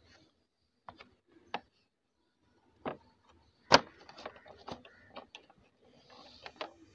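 Plastic tank side panel of a Yamaha FZ motorcycle being worked loose by hand: a scattered series of sharp clicks and knocks as its clips release and the plastic flexes, the loudest a snap just before the middle, followed by a quick run of smaller ticks.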